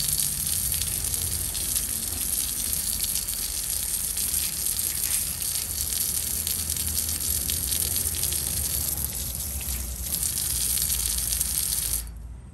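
Garden hose spraying a steady stream of water onto an air-conditioner compressor's shell, splashing off the metal, and it cuts off near the end. The water is cooling the overheated compressor so that its internal thermal overload will reset.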